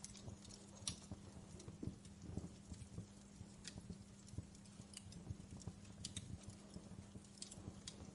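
Wood fire burning in a fireplace, crackling with irregular sharp pops and snaps over a low rumble. A faint steady hum runs underneath.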